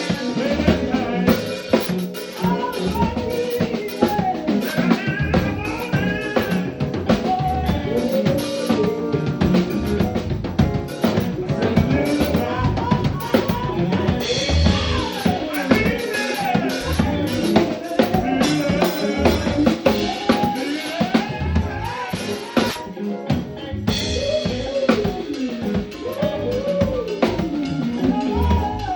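A live band playing: a drum kit with bass drum, snare and rimshots keeps a steady groove under a lead melody that slides up and down in pitch.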